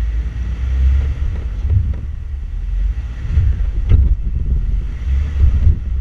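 Low, gusty rumble of wind buffeting the microphone over a four-wheel-drive vehicle's engine running on a rocky trail, with one sharp knock about four seconds in.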